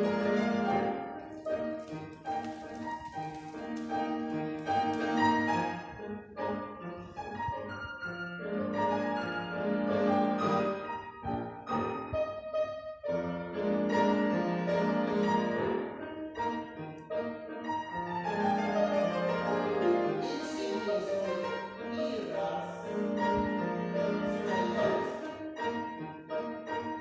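Classical-style piano music playing, with a short break about thirteen seconds in.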